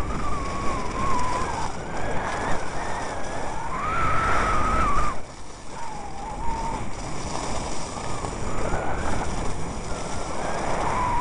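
Skis running over packed snow with wind rushing on the microphone, a steady noisy hiss with a wavering whistle-like tone rising and falling over it. The sound drops off briefly about five seconds in, then picks up again.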